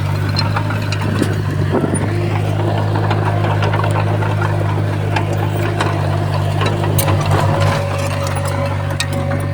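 Komatsu D51PX bulldozer's diesel engine running steadily under work, with scattered sharp clicks and clanks over it and a brief rattling flutter about seven seconds in.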